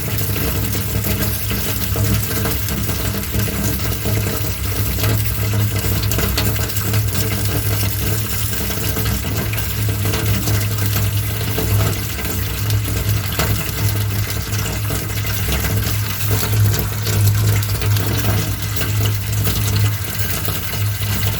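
Fire-and-water clash sound effect: a steady rush of water over a constant low rumble, peppered with many small crackles.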